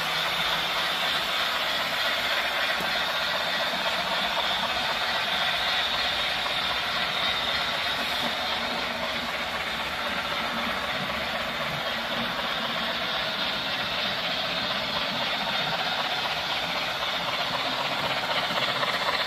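H0-scale model train, a steam locomotive hauling coaches, running on the layout's track: a steady mechanical clatter and rattle of wheels on rails and the locomotive's drive.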